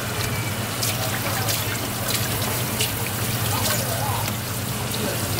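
Water running from a faucet onto a cutting board in a sink, splashing and trickling steadily, with scattered small clicks and knocks from handling and a steady low hum underneath.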